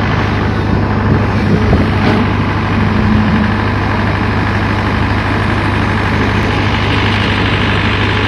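Hyundai crawler excavator's diesel engine running steadily while the machine digs, a constant low drone.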